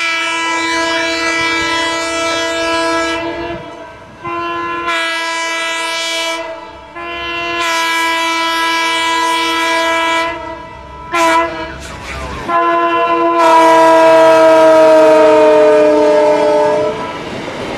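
Multi-chime air horn of the CB&Q E5 diesel locomotive 9911A sounding a series of long blasts and one short one, the sequence used at a grade crossing. The last long blast drops in pitch as the locomotive passes. Then the horn stops and the stainless-steel coaches roll by with a steady rumble of wheels on rail.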